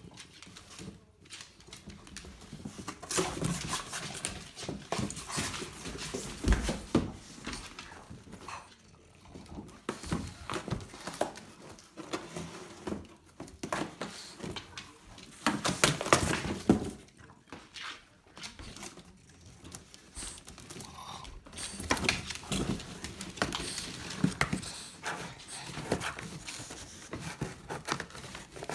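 French bulldog biting and tearing a cardboard shipping box: irregular bursts of ripping and crunching cardboard, loudest in spells about three, fifteen and twenty-two seconds in, with the dog panting between them.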